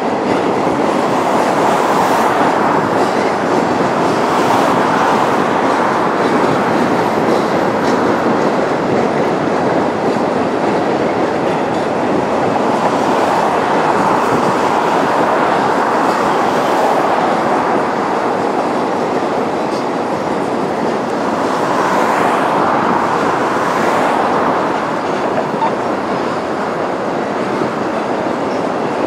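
A Florida East Coast Railway freight train's loaded rock hopper cars rolling steadily across a river trestle, a continuous rumble of wheels on rail with some clickety-clack.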